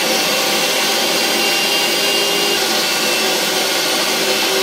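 Electric meat grinder running steadily with a whirring motor whine as beef mince is pushed through its fine plate for a second grind.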